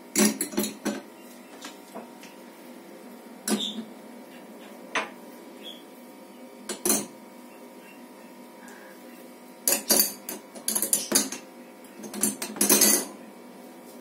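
Dishes and cutlery clinking and knocking against a wire dish rack inside a plastic tub as they are set in place: scattered single clatters, then a denser run of clatters in the last few seconds.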